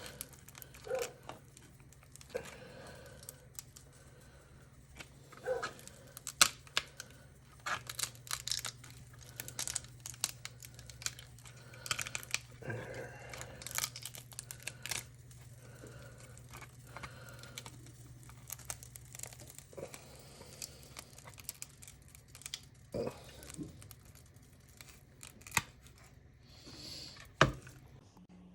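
Plastic support material being peeled and snapped off a hot-water-softened 3D print: irregular crackling, tearing and small snaps. A faint steady low hum runs underneath.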